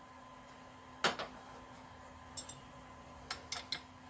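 Light metallic clicks and taps of a wrench and hex key on the clutch adjusting screw's jam nut as it is snugged up. Two clicks come about a second in, one more halfway through, and a quick run of three or four near the end.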